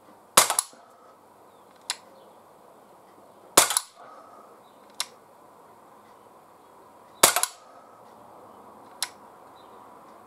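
Umarex Glock 17 Dual Ammo CO2 blowback air pistol firing three shots about three and a half seconds apart, each a sharp crack followed by a quick clatter as the slide blows back. A fainter single sharp click falls between each pair of shots.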